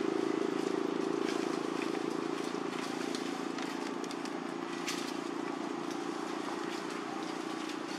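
Steady low drone of an engine running, with a few faint clicks over it.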